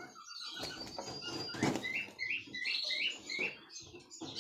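Canary giving a row of short, squeaky chirps, about three a second, from about a second and a half in, as it is caught and held in a hand inside its wire cage, with rustling and light knocks from the struggle.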